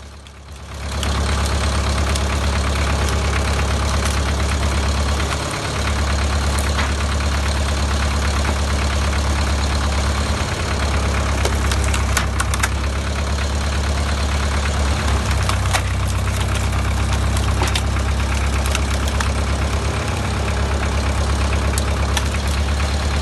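Cone log splitter's drive running steadily with a strong low hum. The hum dips briefly about five and ten seconds in, and scattered sharp knocks sound over it.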